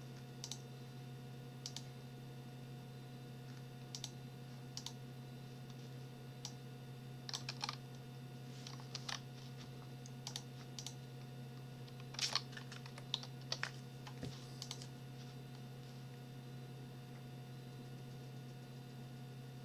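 Computer keyboard keystrokes: scattered single taps and short clusters of key clicks, busiest in the middle, as code is copy-pasted and edited. A steady low electrical hum runs underneath.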